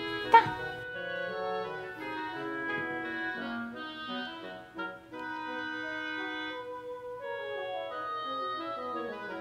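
Background music with an organ-like keyboard melody. A Maltipoo puppy gives one sharp bark less than a second in.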